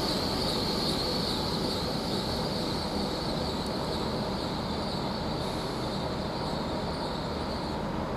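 Great Western Railway Class 800 train at the platform: a steady rumble with a high-pitched squeal that fades out near the end.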